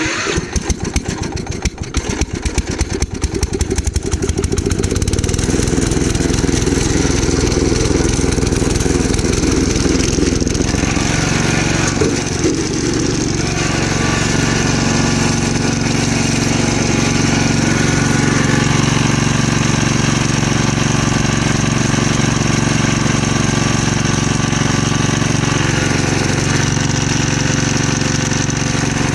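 Gravely Commercial 12 walk-behind tractor engine started, firing unevenly for the first few seconds before catching and running steadily, with a change in its note about eleven seconds in. The engine keeps dying, and the owner suspects it is starving for fuel.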